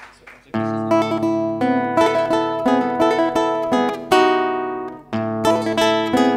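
Acoustic guitar playing the opening of a chacarera, chords struck in a driving rhythmic pattern. It starts about half a second in and breaks off briefly about five seconds in before going on.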